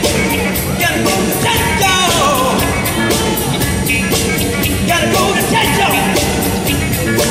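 Loud dance music with a steady, quick beat and singing, played by a DJ over the hall's sound system.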